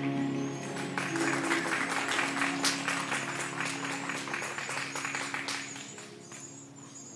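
Audience clapping, swelling about a second in and dying away near the end, over music that fades out.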